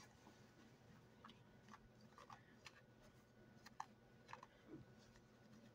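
Near silence, with faint, scattered small clicks and rustles as a crocheted piece is picked up and handled.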